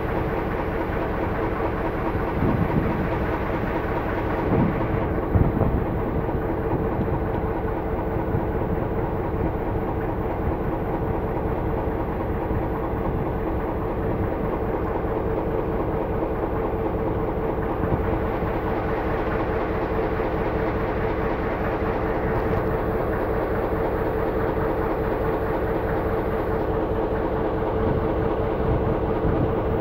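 Diesel locomotive running steadily at a standing passenger train, a constant engine hum over a low rumble, with a few brief knocks in the first seconds and again partway through.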